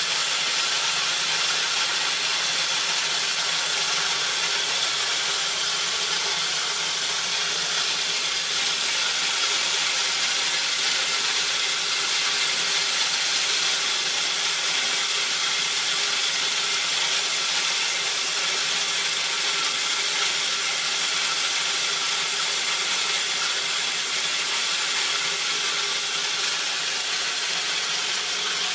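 A180 corn-cracking mill, a 2.2 kW (3 HP) electric motor belt-driving a pair of 180 mm stone grinding plates, running under full load as dried corn kernels feed through the wide-open gate and are cracked into grits. A steady, unbroken grinding noise.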